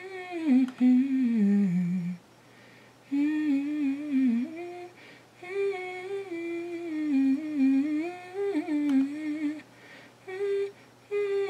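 A woman humming a wandering tune in several phrases with short pauses between them. The first phrase slides downward in pitch.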